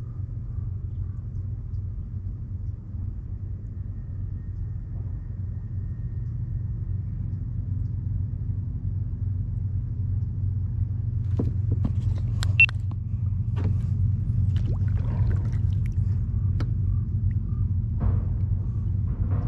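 Wind buffeting the microphone as a steady low rumble, getting a little louder partway through. Scattered knocks and clicks in the second half, the sharpest about two-thirds of the way in.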